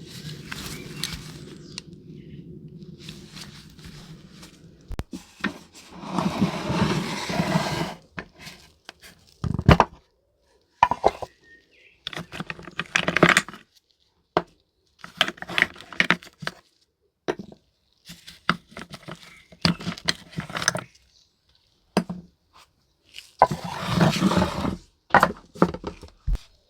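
Small hand tools and parts being worked at a workbench, making scraping and clinking noises in irregular short bursts with silent gaps between them.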